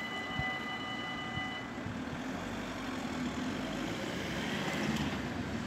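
Railroad crossing bell ringing, which stops about two seconds in as the crossing clears. Road vehicles then rumble across, getting louder near the end.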